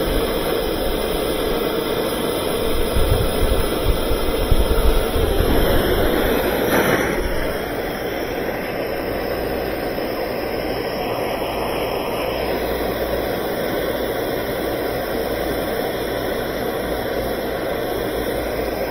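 Hand-held propane torch flame running with a steady hiss, heating plastic patch material to soften it; a louder rumble from the flame comes in about three seconds in and eases off about four seconds later.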